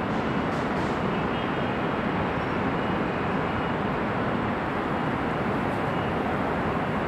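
Steady, dense freeway traffic: a continuous wash of tyre and engine noise from many passing vehicles.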